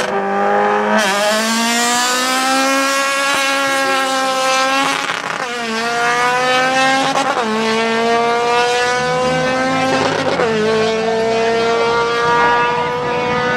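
A 1990s Toyota Corolla sedan drag car launches hard about a second in and accelerates at full throttle. Its engine note climbs in pitch and drops sharply at three upshifts along the run.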